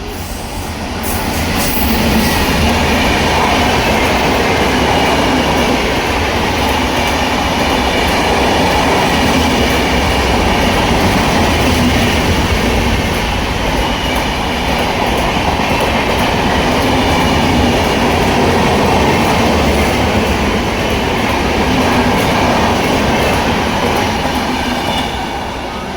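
Indian Railways express passenger train passing at speed: its coaches' wheels clatter on the rails in a loud, steady rush. The sound builds about two seconds in and falls away just before the end.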